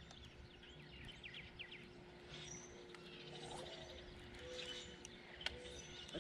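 Faint birds chirping in a few short runs, loudest about one to two seconds in, over a quiet steady hum.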